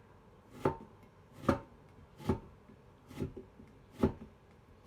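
Knife thinly slicing a lemon on a cutting board: five even strokes, about one every 0.8 seconds, each a short cut ending in a knock of the blade on the board.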